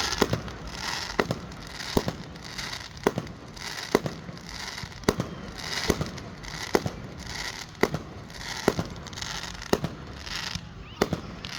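Aerial fireworks going off: sharp bangs about once a second over a continuous noisy wash.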